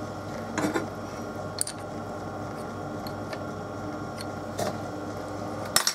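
A few light handling clicks and knocks at the lathe's toolpost, over a steady low workshop hum; the lathe is not turning.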